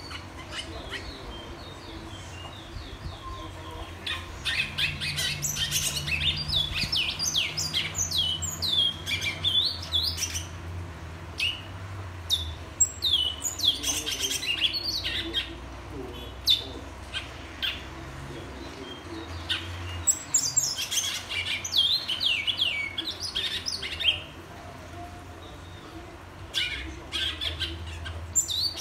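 A caged male bicudo / twa-twa seed-finch singing its whistled song. It gives bursts of quick, clear, high whistles, many of them falling in pitch, repeated in phrases with short pauses between.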